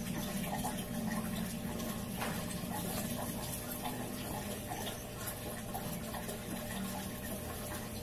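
Water running steadily into an aquarium, with a low steady hum underneath.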